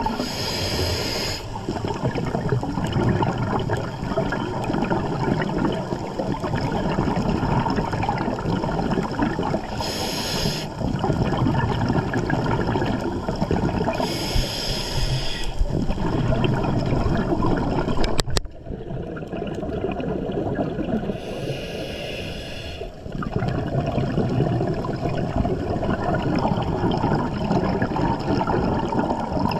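Underwater sound on a scuba dive: a steady low water rumble, broken every several seconds by a short hissing rush of exhaled bubbles, with a single click about two-thirds of the way through.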